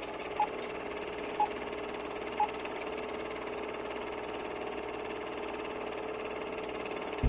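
Opening of a song's soundtrack: a steady electronic drone with three short high beeps about a second apart in the first few seconds.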